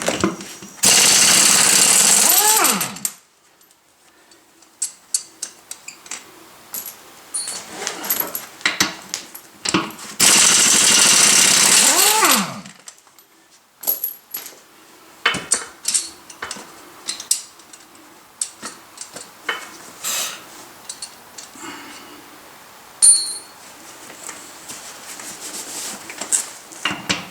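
Impact wrench hammering on the tractor's wheel lug nuts to break them loose, in two bursts of about two seconds each. Between them come short metallic clicks and taps as the nuts and tools are handled.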